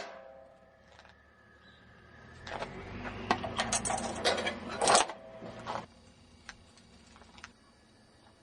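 Metal clattering and rattling: a run of sharp clicks and knocks that swells into a dense clatter with a low rumble from about two and a half to five seconds in, then thins to a few scattered clicks.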